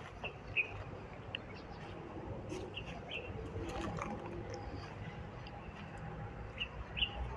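Short, high bird chirps now and then over a steady low outdoor rumble.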